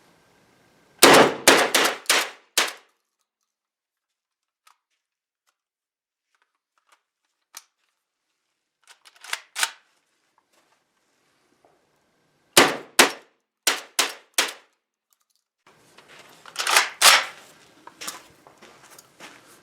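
JTS AK-style 12-gauge semi-automatic shotgun firing target loads in rapid strings. About five shots come in under two seconds, then after a long pause a quieter pair, then another string of about five, and a last cluster of shots near the end.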